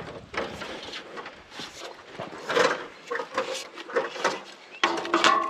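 Irregular knocks and clatter of hands, a spirit level and a ladder against galvanized steel carport tubing.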